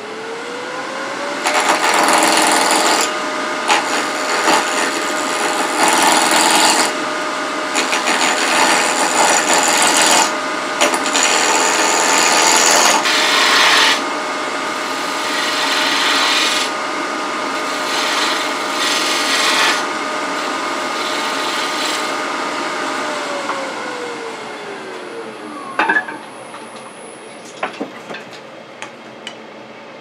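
Wood lathe motor whining as it speeds up, then a turning tool cutting a tenon on the end of the spinning wood blank in repeated scraping passes of a second or few each. About three quarters of the way through the cutting stops and the lathe winds down to a stop, followed by a few light clicks.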